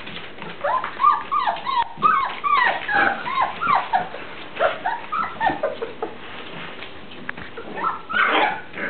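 Weimaraner puppies whimpering and yipping: a quick string of short, high calls that rise and fall in pitch, easing off about two-thirds of the way through.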